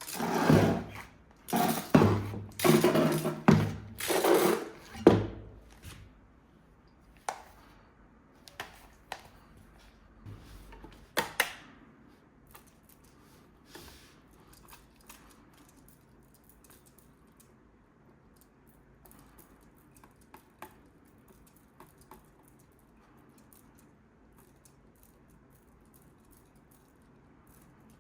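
Toys being handled: loud rustling and knocking for the first few seconds, a few sharp clicks, then faint scattered taps and ticks.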